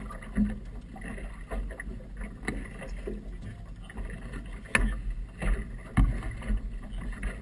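Small outboard motorboat under way on choppy water: a steady low rumble of wind and water against the hull, broken by sharp knocks, the loudest about 5 and 6 seconds in.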